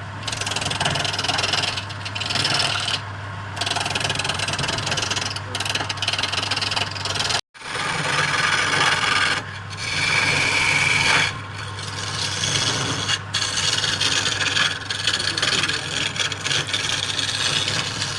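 A woodturning tool cutting and scraping wood on a running lathe: continuous rasping, shaving noise over a steady low hum, breaking off for an instant about seven and a half seconds in.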